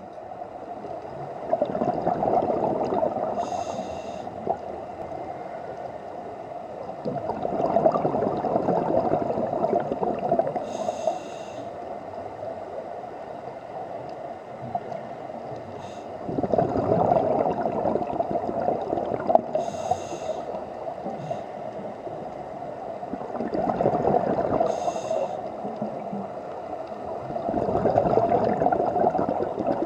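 Scuba diver's regulator breathing underwater: a short hiss of inhalation and a longer gurgling burst of exhaled bubbles, repeating about every six to seven seconds, five breaths in all.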